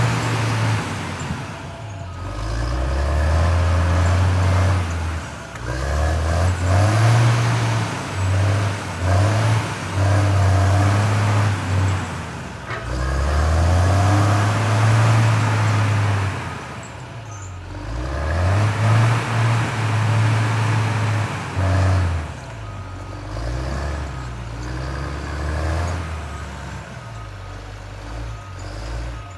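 Cat 535C grapple skidder's diesel engine revving up and dropping back again and again as the machine drives and turns, its pitch climbing and falling every few seconds.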